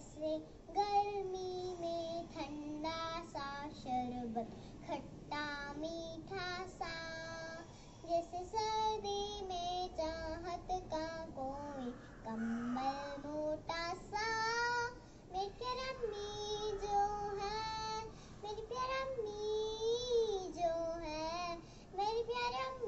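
A young girl singing a short song, her voice holding long notes between phrases.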